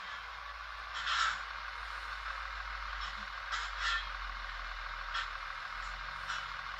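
Steady whirring of H0 model trains running on a Märklin layout, with a low hum underneath and short rasping bursts, the loudest about a second in and a few more later.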